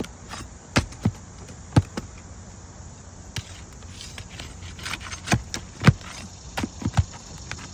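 Irregular sharp clicks and knocks of a tool working nails and asphalt shingles loose on a roof, with quiet gaps in between.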